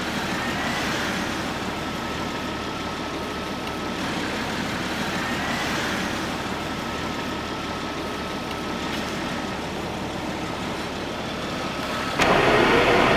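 Steady car engine and road noise, with a faint high whine that rises and then holds, twice. About a second before the end a louder sound comes in suddenly.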